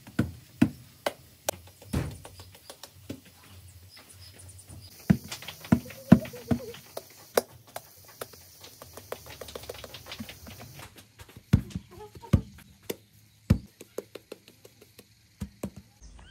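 Hands slapping and patting soft bread dough into balls on a floured, cloth-covered table: irregular sharp smacks, some in quick runs.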